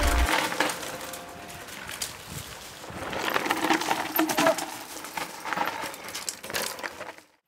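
Mountain bike riding down a dry dirt trail: irregular crunching of tyres over earth, twigs and loose stones, with clinking rattles from the bike. It cuts off suddenly near the end.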